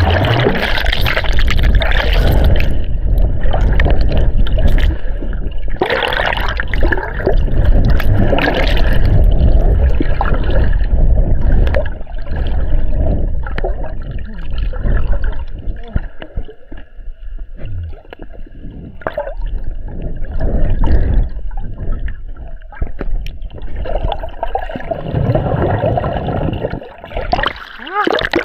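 Sea water sloshing and gurgling against an action camera's waterproof plastic case as a swimmer moves in the water, with a steady low rumble and irregular splashes.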